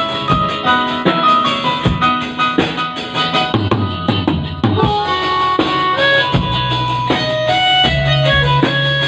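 Music with a steady drum beat under melodic pitched notes, and no voice.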